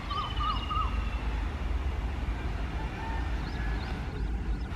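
Low, steady rumble, with a warbling, zigzagging call in the first second and a few faint chirps later.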